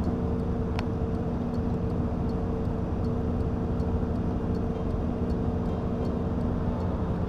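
A motor vehicle running steadily, a constant hum with rumbling noise beneath and faint regular ticking.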